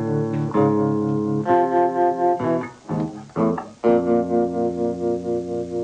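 Guitar music: plucked chords held and changed about once a second. Around three seconds in, a few short choppy notes lead into one long held chord.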